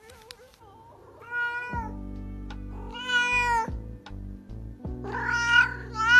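Domestic cat meowing loudly in several long, drawn-out calls, about three, with a fourth starting near the end. The cat is complaining at finding no food.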